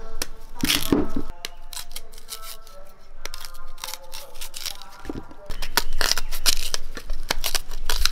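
A kitchen knife cutting and scraping the tough skin off raw cassava roots: a quick run of short, crisp cuts and scrapes, with a heavier knock about a second in.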